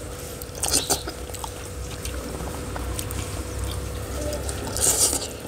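Close-up wet eating sounds: chewing and slurping of food eaten by hand, with two louder, crackly wet bursts, one about a second in and one near the end.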